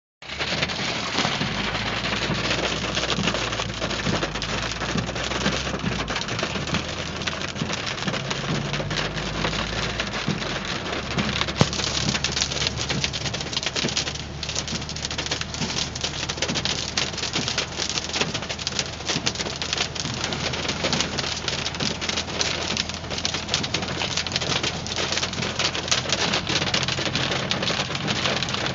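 Hail pelting a moving car in a dense, continuous clatter of small hits, with a low, steady hum from the car underneath.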